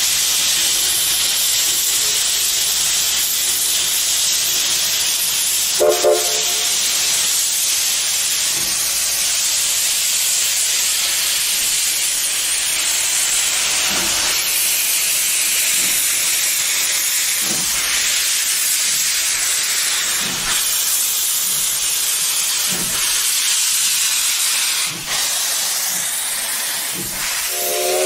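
Steam locomotive hissing steadily as steam vents from its open cylinder cocks, with a brief whistle blast about six seconds in.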